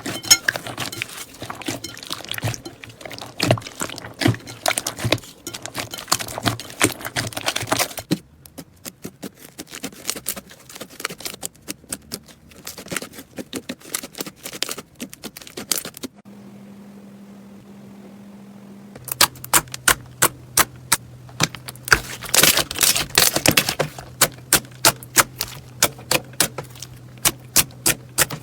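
Slime being squeezed and poked by hand, making runs of sharp crackling pops and clicks across several short clips. A few seconds of low steady hum with no pops come just past the middle.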